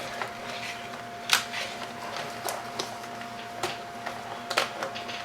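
Light clicks and taps of wires and small parts being handled on a workbench, about one every second, over a faint steady tone.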